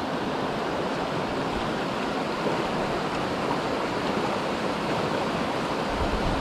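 Trout river's current rushing steadily: a constant, even noise of flowing water.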